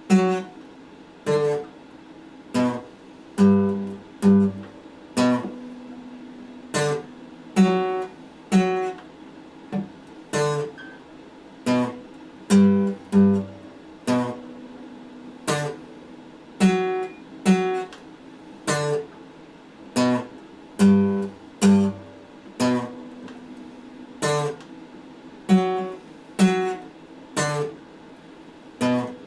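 Acoustic guitar strummed in short chords, about one a second, each dying away quickly, moving from chord to chord.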